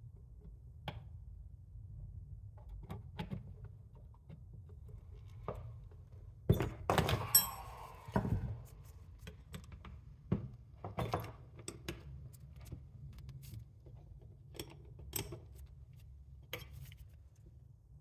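Hand tools and small metal parts clicking and knocking as a motorcycle front brake master cylinder is taken apart, in scattered single taps with a louder cluster of knocks and a rattle about seven seconds in, over a steady low hum.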